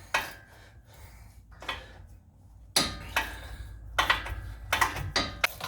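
Steel hand tools clanking and clicking against a front wheel hub as a tight, rust-crusted hub mounting bolt is worked loose. There is one sharp clank at the start and a run of them in the second half.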